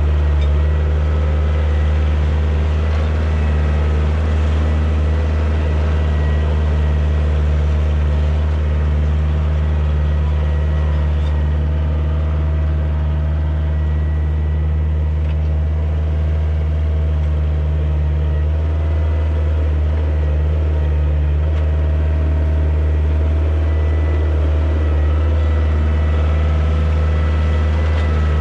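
Kioti DK40se compact tractor's diesel engine running steadily under work, a constant low hum with a faint steady whine above it.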